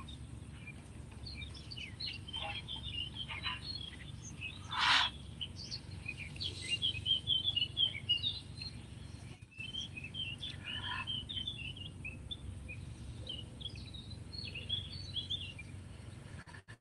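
Small birds chirping and singing throughout. About five seconds in, a short, loud forced exhalation, air pushed hard out of the lungs in a breathing exercise.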